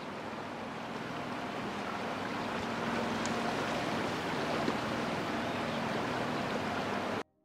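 Steady rushing of flowing river water, swelling slightly, then cutting off suddenly near the end.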